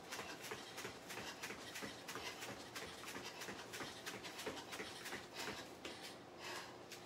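Bare feet landing on rubber gym mats during fast high knees, about three to four footfalls a second, slowing near the end into hard breathing.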